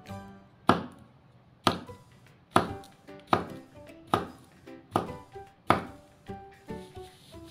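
A knife chops down through a slab of kinetic sand onto the table in about seven sharp knocks, roughly a second apart, with lighter ones near the end. Background music plays underneath.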